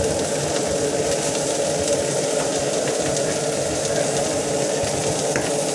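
Nasi goreng frying in a wok: a steady sizzle over a dense rushing noise, with a few light clicks.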